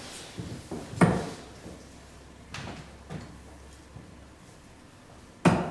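Steel-tip darts thudding into a Winmau Blade 5 bristle dartboard: two sharp knocks about four and a half seconds apart, with a couple of fainter knocks between them.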